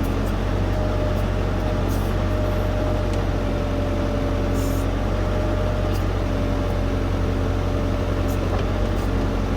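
LS U5030 compact tractor's diesel engine running steadily under backhoe work, a deep even hum with a steady whine above it and a few faint clicks.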